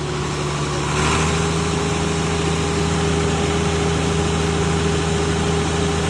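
Diesel engine of a drum wood chipper running steadily. About a second in it picks up speed and gets louder, then holds.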